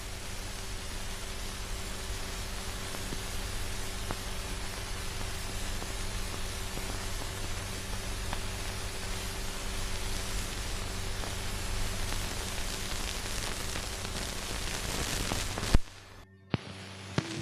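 Steady hiss and hum of an old film soundtrack, with faint scattered crackles. Near the end a loud pop comes, the sound cuts out for about a second, then a click.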